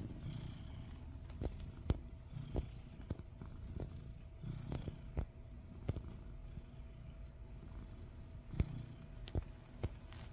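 A domestic cat purring close up, a steady low purr, with scattered sharp clicks.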